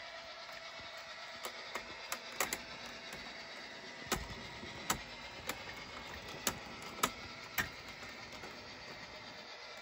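HO scale model passenger train rolling along the track, its metal wheels giving irregular sharp clicks as they cross rail joints and turnouts, over a faint steady hum.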